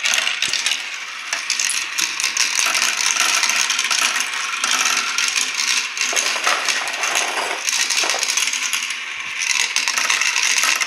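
Many small plastic balls clattering through a Kumikumi Slope plastic marble run: a dense, continuous rattle of clicks as they crowd down the tubes and chutes and circle the spiral funnel dish.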